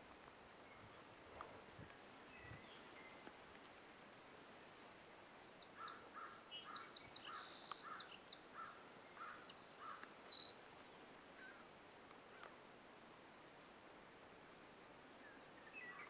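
Birds calling over faint open-field ambience: scattered high chirps, then a busier run of song in the middle, including a series of about eight short, evenly spaced lower calls.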